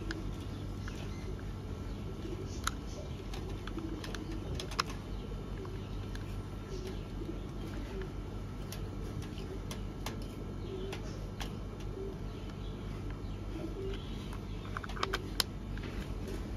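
Small screws being driven into a plastic toy car body with a hand screwdriver: scattered light clicks and ticks, a few close together near the end, over a steady low hum and soft intermittent cooing.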